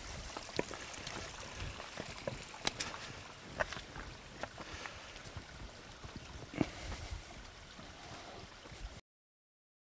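Footsteps on a rough path of loose slate stones: faint, irregular crunches and knocks over a steady faint hiss, cutting off to dead silence near the end.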